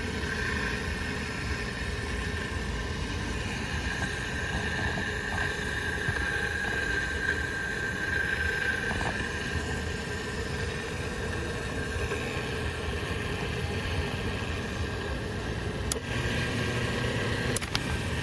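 Restored Atlas model 2502 half-horsepower AC motor running steadily with an even hum and a constant whine. A couple of sharp clicks near the end.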